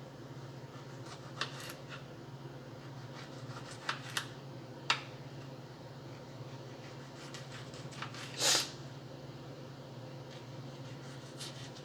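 Food-preparation handling sounds: a few light clicks and taps, then a short scrape or rustle about eight and a half seconds in, over a steady low hum.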